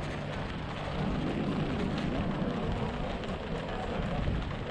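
Bicycle rolling over cobblestones: tyres and frame rattle in a dense, steady crackle, over low wind rumble on the microphone.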